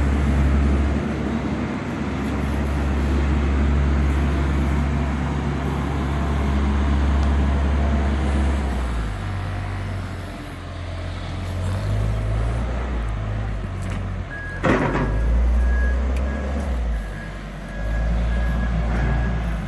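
John Deere 310 backhoe's diesel engine running and working under changing load, the engine note shifting as it goes. About three-quarters of the way through comes a single sharp bang, and then a reversing alarm beeps steadily.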